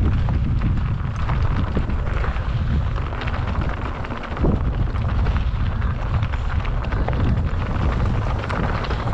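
Wind buffeting the microphone over a mountain bike running down a rough trail at speed: steady rumble, with tyres rolling over dirt and rocks and frequent short rattles and knocks from the bike.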